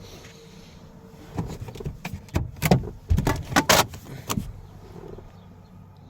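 A quick run of about a dozen sharp clicks and knocks over some three seconds, the loudest near the middle, over a low steady background hum.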